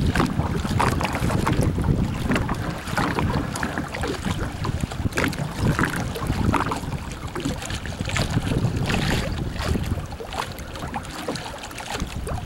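Wind buffeting the microphone in a steady low rumble, over choppy river water splashing irregularly against a kayak.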